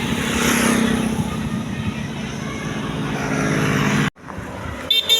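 A large road vehicle, most likely a passing tour bus, droning by with engine and road noise, which cuts off abruptly about four seconds in. Short high horn notes, the start of a bus's musical 'telolet' horn, sound near the end.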